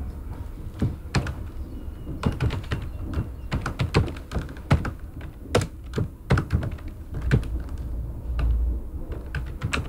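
Typing on a computer keyboard: a run of separate keystroke clicks at an uneven pace.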